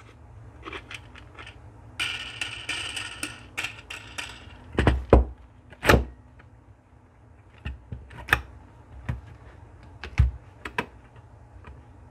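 Toolguide metal back-glass clamp being taken apart by hand. Small clicks and taps as its screws and guide rods are worked, then about two seconds of rattling, scraping metal. Several solid knocks and clunks from the plates follow, the loudest about five and six seconds in, with more scattered taps after.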